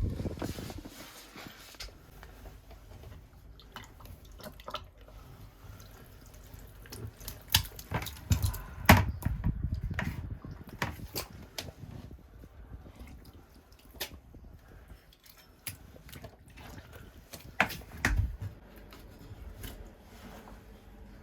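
Water dripping and splashing, broken by scattered knocks and clinks of hands and tools working on a toilet, with a few heavier thumps.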